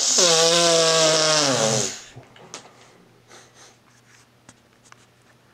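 A long, loud groan from a voice, held for about two seconds and sinking in pitch as it ends, followed by faint clicks and rustling.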